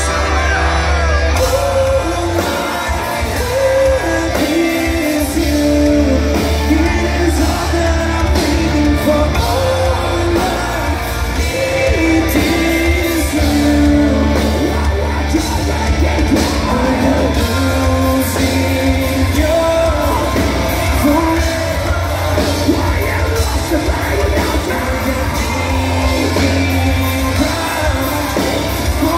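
Live rock band playing loud and steady, with electric guitars, bass and drums under a singer's melodic vocals, heard from within the crowd in a large hall.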